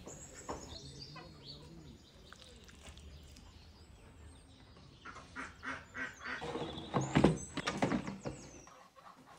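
Hard plastic knocks and clatter of an air fryer's basket being handled and slid back into the unit, loudest about seven seconds in. Earlier, a bird calls in the background.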